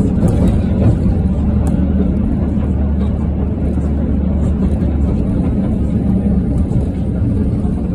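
Steady low rumble of a tram running along the street, heard from on board.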